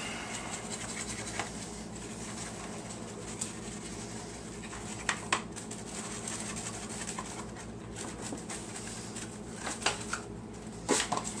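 Paper bag of self-rising flour crinkling and rustling as the flour is poured out into a plastic container, with a few light taps and clicks, two close together about halfway through and more near the end.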